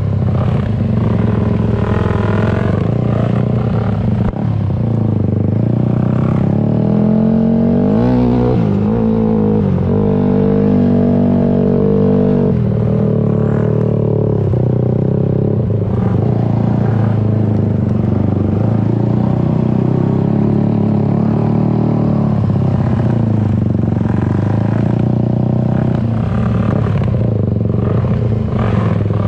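Dirt bike engine running, heard from on board the moving bike, its pitch rising and falling as the rider opens and eases the throttle. There are several revs up in the first half, then it runs more steadily.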